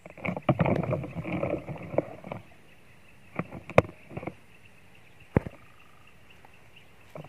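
Close rustling and knocking handling noises for about the first two seconds, then a few separate sharp knocks, over a steady high-pitched drone.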